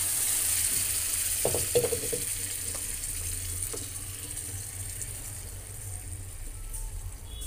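Cooked moong dal with tomato poured from a metal pot into a pan of hot oil and browned onions: a sizzling, splashing hiss that fades as the pan cools. A steel ladle knocks against the pan a couple of times about one and a half to two seconds in and once near four seconds as the dal is stirred.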